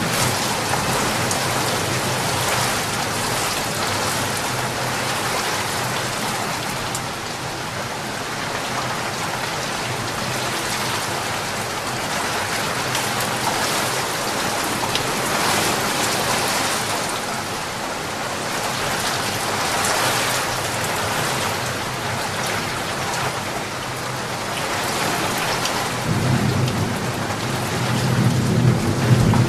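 Steady rain pouring down, swelling and easing slightly. A low rumble of thunder comes in near the end.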